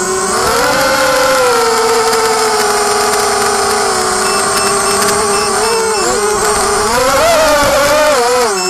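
Quadcopter's four DYS BE1806 brushless motors spinning 5045 propellers, heard from the onboard camera: a buzzing whine whose pitch wanders with the throttle, wavering about six seconds in, then dropping sharply and climbing again near the end.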